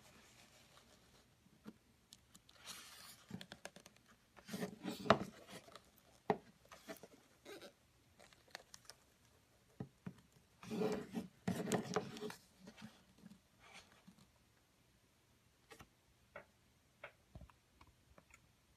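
Handling noise from a Blu-ray steelbook's card insert being held, turned over and set down: two short bouts of rustling and sliding with light taps, and scattered small clicks between and after them.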